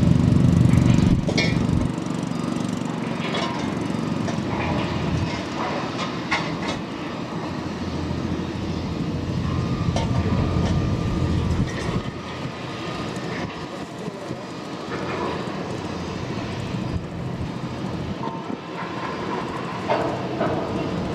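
Patrol boat's engines running at speed, loudest for the first second or so, with scattered sharp knocks over the steady noise.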